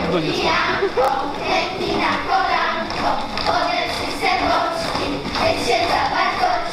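Group of young girls singing a Polish folk ring-game song in unison while dancing in a circle, with their feet tapping and thudding on the stage floor.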